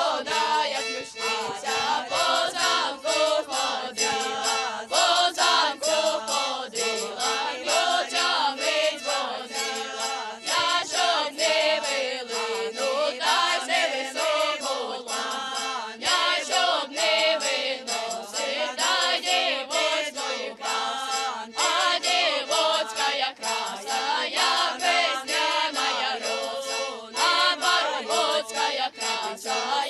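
A folk ensemble of children and women singing a Ukrainian folk song together, many voices in chorus.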